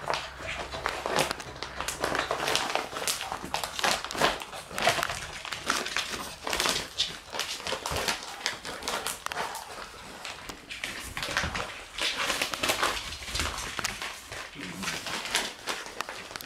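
Shiba Inu puppies scuffling over a bag, the bag rustling as they grab, tug and shake it, in a rapid, irregular run of rustles and scuffles.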